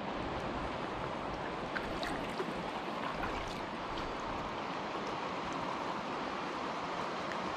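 Steady rush of flowing river water around a drifting fishing kayak, with a few faint light ticks in the first half.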